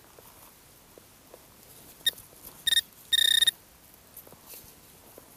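Metal detector sounding its electronic target tone over dug soil: three high beeps about two seconds in, short, short, then one held for about half a second, signalling metal in the loosened earth.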